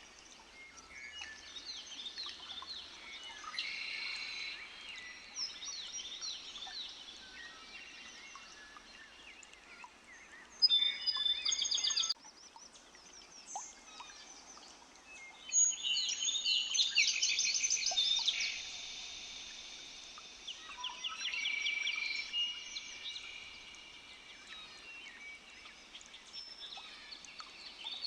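Several songbirds singing and chirping in overlapping rapid phrases, with louder bursts about 11 seconds in and again around 16 to 18 seconds, over a faint steady background hiss.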